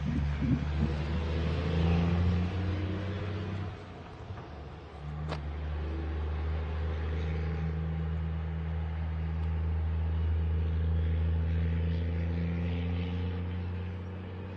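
An engine running steadily with a low hum. The hum drops away briefly about four seconds in, then comes back, with a single click just after.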